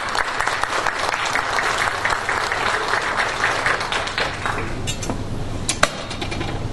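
Audience applauding, the applause dying away about two-thirds of the way through and leaving a few scattered claps and a sharp knock near the end.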